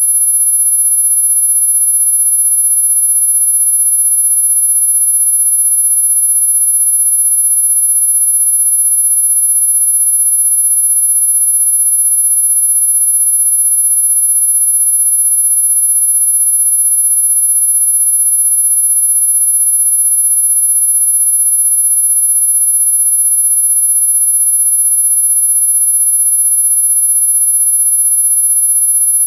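Mosquito tone: a single electronically generated pure tone, very high-pitched, held perfectly steady and loud without a break. It is the high-frequency tone that many older listeners can no longer hear.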